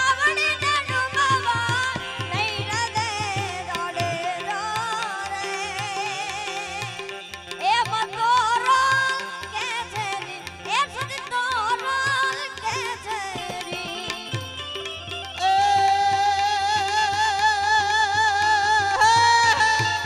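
Live Gujarati devotional folk music (bhajan) between sung verses: an ornamented, wavering melody over a steady hand-drum beat, growing louder about fifteen seconds in.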